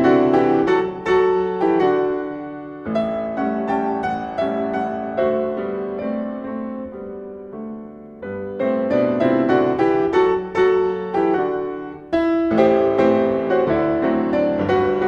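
Solo piano playing a 19th-century Mexican dance piece, a quick run of struck notes and chords that grows softer through the middle and comes back in loud with a strong chord about twelve seconds in.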